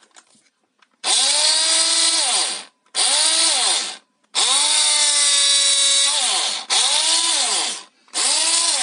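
Arzum Speedmix AR1013 hand blender's newly replaced motor run in five short bursts, each whining up to speed and winding down when the button is released. The repaired blender is working again.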